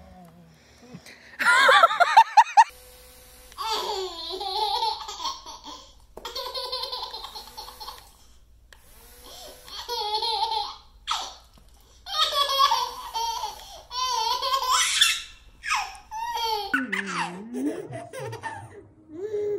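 A baby laughing: repeated bouts of high, bubbling giggles and belly laughs, each a second or two long with short breaths between.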